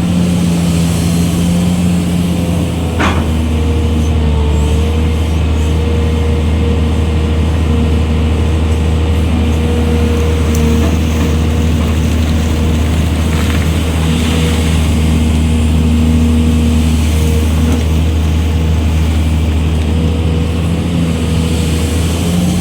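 Hydraulic excavator's diesel engine running steadily under load, its pitch rising and falling slightly as the hydraulics work, with a sharp knock about three seconds in.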